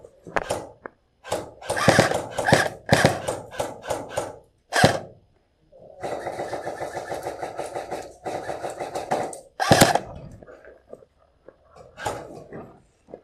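Airsoft electric guns firing at close range: irregular sharp cracks and clicks, then two rapid, even full-auto bursts totalling about three and a half seconds, with a single loud crack right after.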